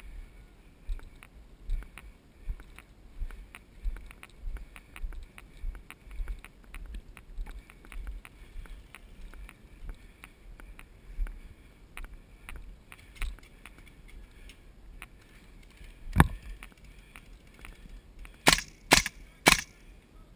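Airsoft guns firing single shots as four loud, sharp snaps, three of them close together about half a second apart near the end. Under them runs a string of faint ticks and low thumps.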